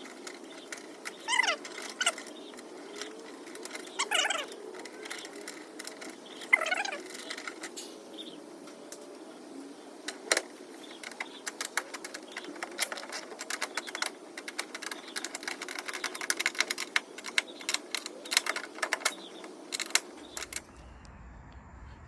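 Hand tools working a bolt and nut: rapid runs of ratchet-like clicking and light metal clinks as the bolt is wound in, with three short squeaks that fall in pitch in the first seven seconds.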